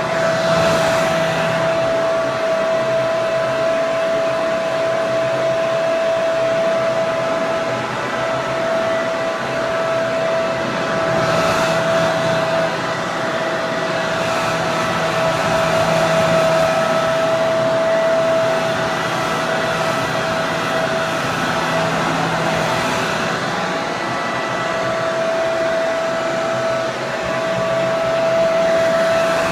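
Hair dryer running continuously: a steady rush of air with a constant motor whine, swelling slightly in strength every few seconds.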